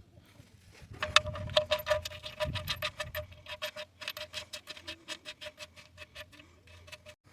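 Ratchet wrench clicking in a fast, even run of sharp metallic clicks, about six a second, slowing slightly near the end and stopping abruptly: the ratchet being swung back while working a fitting.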